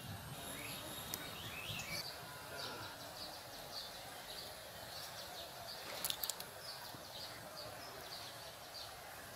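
Birds chirping outdoors, with one short high call repeated about twice a second through the second half, and a couple of sharp clicks about six seconds in.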